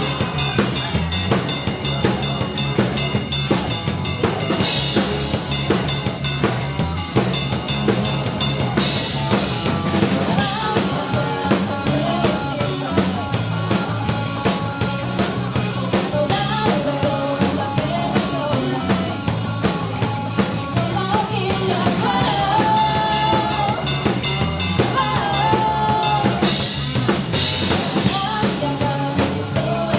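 Band music driven by a drum kit, with a steady beat of bass drum and snare over a sustained bass line.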